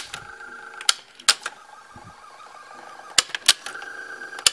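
Early-1980s Hitachi top-load VCR mechanism running with a steady motor whine, broken by sharp mechanical clicks at uneven intervals. The motor is misbehaving, which the owner suspects is slippage in its worn rubber drive.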